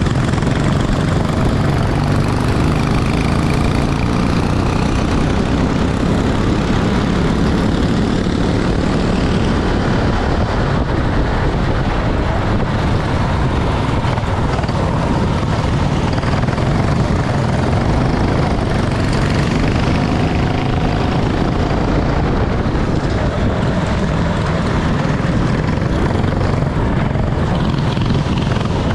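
Racing kart engine running hard throughout, its pitch rising and falling, over a steady dense noise.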